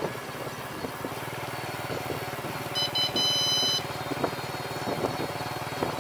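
A 250 W gear-motor electric bicycle runs along a road with a steady low drone. About three seconds in, an electronic beep sounds: two short blips, then a single tone of about a second.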